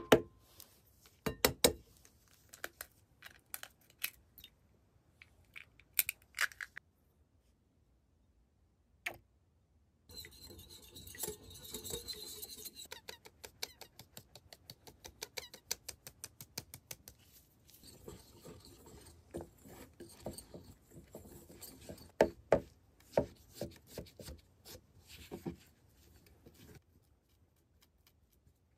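Batter being made in a glass mixing bowl: sharp taps and cracks in the first few seconds as eggs are broken, a quiet gap, then a whisk rattling against the glass. After that come rhythmic taps and the scraping of utensils against the bowl.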